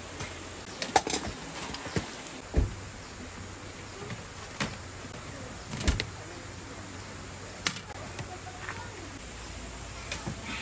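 Camping gear being handled: scattered light clicks and knocks, roughly one every second or two, over a steady background hiss.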